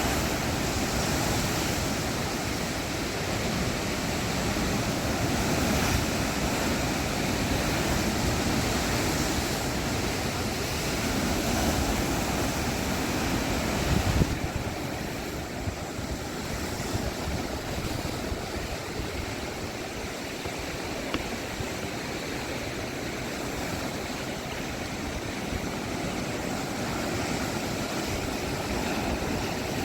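Sea waves breaking and washing in as a steady rush of surf. It eases a little about halfway through, just after a brief thump.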